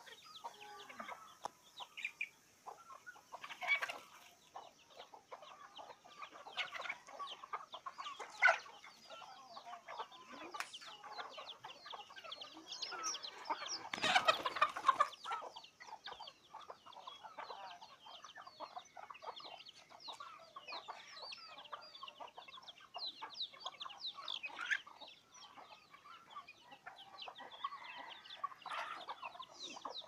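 A flock of native chickens, roosters and hens, clucking on and off while foraging. A few louder calls stand out, with a longer, louder burst of calling about halfway through.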